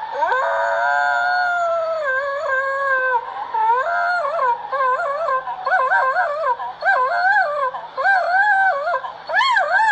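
A dog howling: a long, drawn-out gliding howl, then a run of quick wavering yowls rising and falling two or three times a second.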